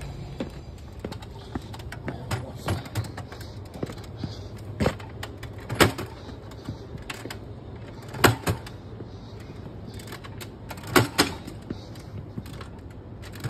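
Hand truck bumping down a flight of stairs one step at a time: irregular knocks and clunks, the loudest coming in close pairs.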